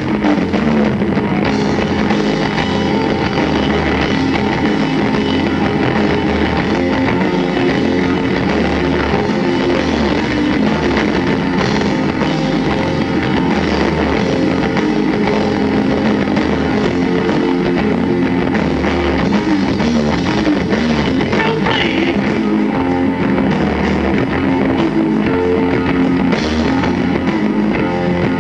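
Rock band playing live on stage, with electric guitar, bass guitar and drum kit. The music is loud and even, with a pulsing low end.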